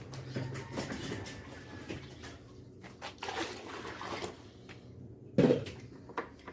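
Water being scooped out of a washing machine drum with a small plastic container: sloshing, dripping and plastic knocks. There is one louder knock about five and a half seconds in.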